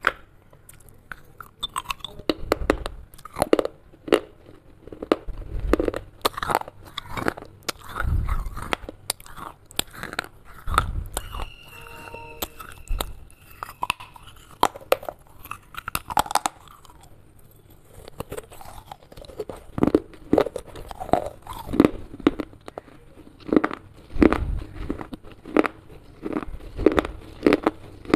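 Close-up biting and chewing of broken baked-clay pieces: repeated sharp crunches and grinding between the teeth, with quieter spells in the middle.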